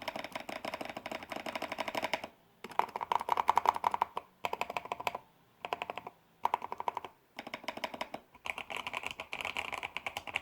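Fast typing on a custom mechanical keyboard with a wooden case, Outemu Red linear switches fitted with 80 g springs, paper-tape and PE-foam mods, and thick-walled PBT keycaps. The keystrokes come in quick runs broken by short pauses.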